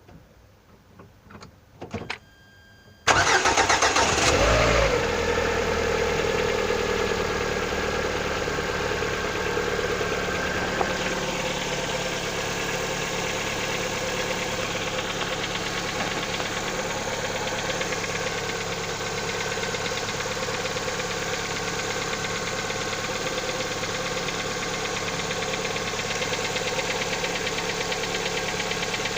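Lada XRAY engine starting from cold about three seconds in, after a few faint clicks, with its revs settling within a couple of seconds into a steady idle. Throughout the idle there is a knock that shows up only when the engine is cold; the owner is asking what is causing it.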